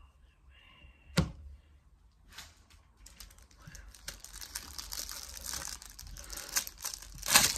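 Crinkly plastic wrapper of a collectible packet being handled and torn open by hand, with one sharp click about a second in and a dense crackling that grows louder toward the end.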